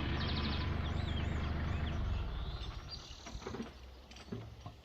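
Kubota tractor engine running steadily in the background, dropping away about two seconds in, while small birds chirp. A few light knocks follow near the end.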